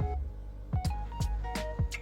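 Background music with a steady beat: a deep bass kick with short plucked-sounding notes on top.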